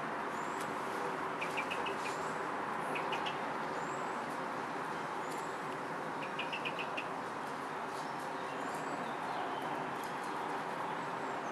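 Small birds chirping over a steady background hiss. One bird repeats a short high note about once a second, and three times a quick run of four or five lower chirps sounds.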